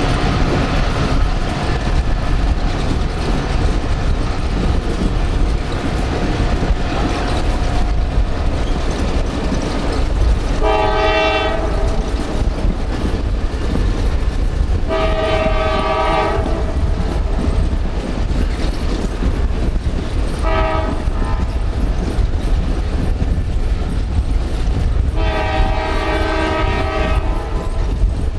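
Alaska Railroad train running with a steady low rumble while its horn sounds four chord-like blasts starting about ten seconds in: long, long, short, long, the signal for a grade crossing.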